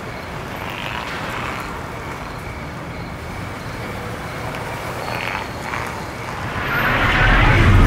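Traffic noise: a steady outdoor rumble and hiss that swells louder near the end, as of a vehicle passing close.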